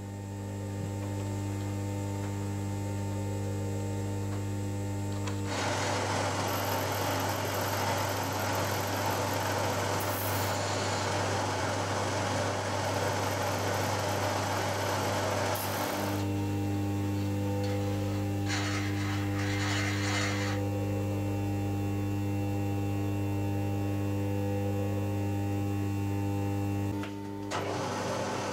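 Drilling machine's spindle motor running with a steady hum, the drill cutting into the aluminium fuel tank and adding a loud hiss from about five seconds in to about sixteen and again briefly around nineteen seconds. The hum changes and dips near the end.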